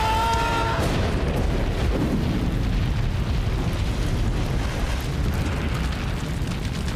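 Light aircraft exploding in a fireball, a dense low rumble of blast and burning that carries on at an even level. A high held tone cuts off just under a second in.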